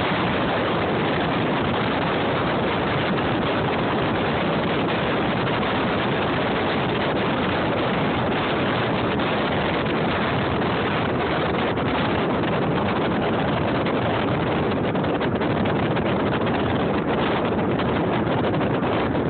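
Strong wind buffeting the microphone: a steady, loud rushing noise with no breaks.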